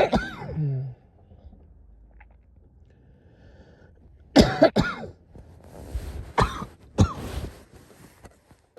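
A woman's chesty coughing: one cough right at the start, then after a few quiet seconds a run of several harsh coughs in quick succession from about halfway in.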